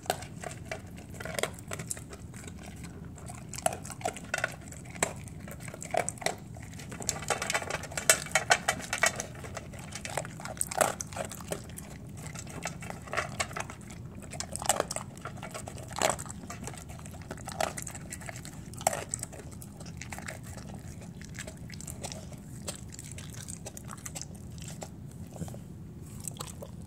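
Dog eating dry kibble from a stainless steel bowl: irregular crunching and sharp clicks as the food is bitten and pushed around the metal bowl, with a dense run of crunches about a quarter of the way in.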